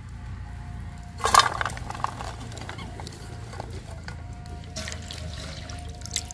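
Water splashing and dripping in a steel bowl as green beans are washed by hand and lifted out. The loudest splash comes about a second in, with smaller ones later, over soft background music.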